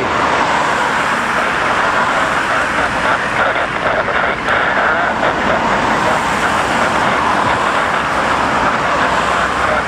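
Steady roar of road traffic passing close by, mixed with the engine noise of a landing Boeing 777 on the runway beyond.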